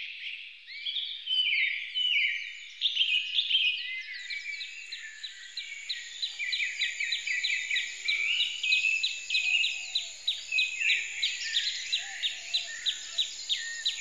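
Several songbirds chirping and singing at once, a dense tangle of high calls. Through the second half a short chirp repeats quickly and evenly, a few times a second, over the rest.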